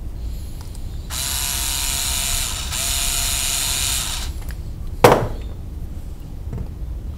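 Cordless screwdriver running in two bursts of about a second and a half each, back to back, driving a screw. About a second later comes a single sharp knock, the loudest sound here.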